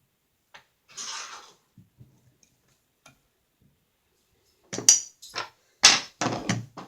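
Metal parts of an FN FAL lower receiver being handled during disassembly: a short scrape about a second in, a few light ticks, then a quick series of sharp metallic clicks and knocks near the end, the loudest part.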